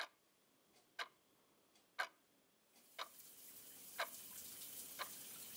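A clock ticking once a second, six ticks. About three seconds in, a steady hiss of running water comes in beneath the ticks.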